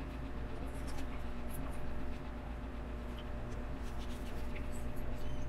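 LEGO pieces being handled and pressed together: faint, scattered plastic clicks and scratchy rustling over a steady background hum.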